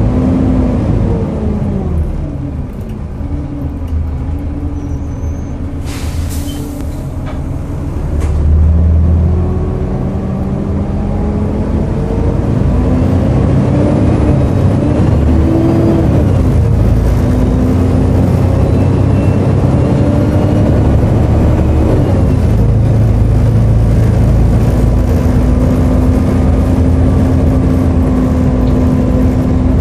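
Volvo B7TL double-decker bus's engine slowing down, idling briefly with a short hiss of air about six seconds in, then pulling away and accelerating through the gears with a high turbo whine, settling into a steady cruise for the last third.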